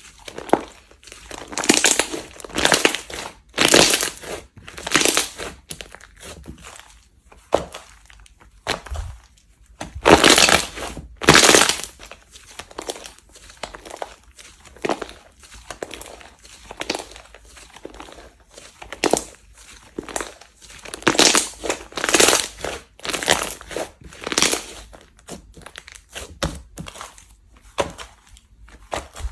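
Hands squishing and pressing slime in a run of irregular noisy squishes, about one or two a second, the loudest about ten to twelve seconds in.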